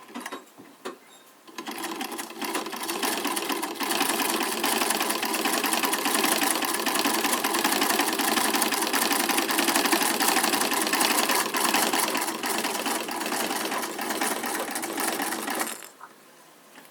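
Bendigo So Easy treadle sewing machine being treadled and sewing. It starts about a second and a half in, picks up speed over the next couple of seconds, runs at a steady rapid stitching clatter, and stops about a second before the end.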